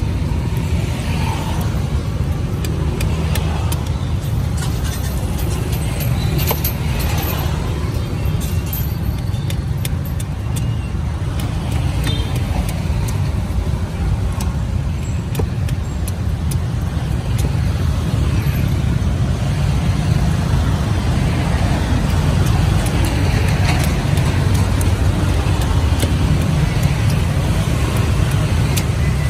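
A large steel coconut knife shaving and chopping the husk off a young coconut on a wooden board, in scattered light cuts and clicks, over a steady low rumble like road traffic.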